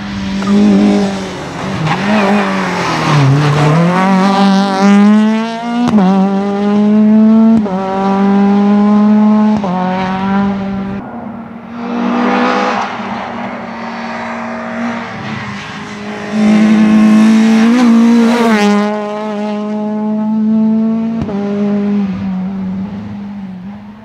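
Renault Clio rally car's naturally aspirated four-cylinder engine revving hard on a tarmac stage, rising through the gears again and again with a sharp break at each gear change. Around three seconds in the revs drop and pick up again as it slows for a bend.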